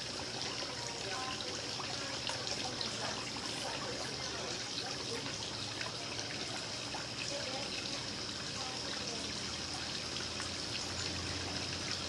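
Steady outdoor background noise like trickling water, with an even high hiss.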